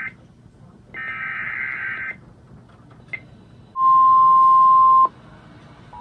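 Emergency Alert System SAME header data bursts: a harsh, buzzy digital warble. One burst ends right at the start and another runs from about one to two seconds in. After a short pause, a single loud steady tone sounds for just over a second and cuts off.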